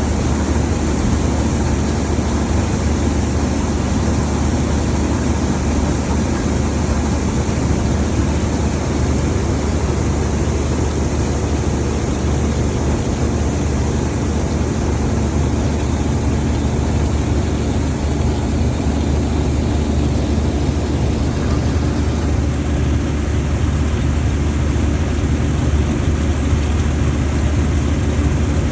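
Combine harvester running steadily under load while harvesting barley: a dense, continuous engine drone with a heavy low hum.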